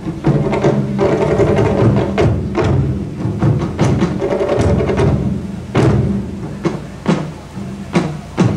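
Wadaiko (Japanese taiko) ensemble drumming: deep booming strokes on the barrel drums mixed with sharp high cracks from the small tight-headed shime-daiko and sticks. It runs in a dense driving rhythm, with the strokes spacing out into more separate hits near the end.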